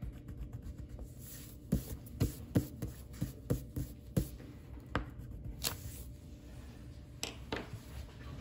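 A coloring tool scratching on paper in short strokes, a quick run of them in the first half and then a few spaced ones, as an area of a drawing is filled in.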